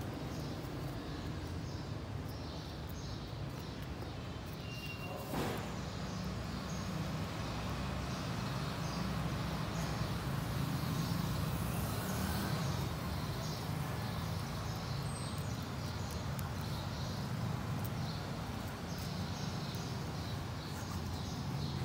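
Steady background noise with a low rumble, a single sharp click about five seconds in, and a few faint, brief high chirps.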